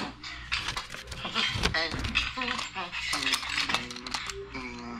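Clicks and clatter of a hard plastic toy robot being handled and set down on a tile floor, with a voice making wordless, squealing gibberish sounds in the second half.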